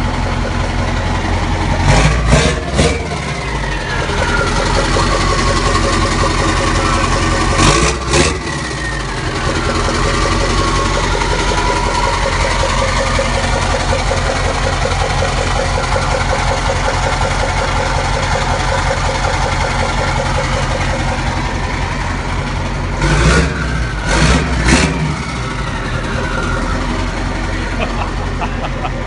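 Straight-piped Mack E9 V8 diesel in a Renault Magnum 560 truck idling, blipped to a short rev about two seconds in, again near eight seconds and a few times late on. After each blip the turbo whistle falls away as the engine drops back to idle.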